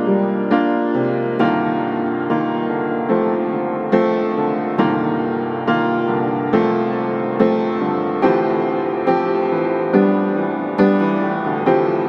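Background piano music: a slow piece of chords, struck about once a second and each left to ring out.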